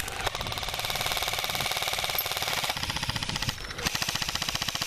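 Airsoft gun firing full-auto in one long continuous burst: a fast, even stream of shots over a steady motor whine, a little softer after about three seconds.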